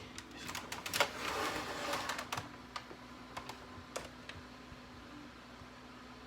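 Scattered light clicks and taps, with some rustling in the first two and a half seconds, from hands working the Dell Inspiron One all-in-one computer as it is shut down; the clicks stop after about four and a half seconds, leaving a faint steady hum.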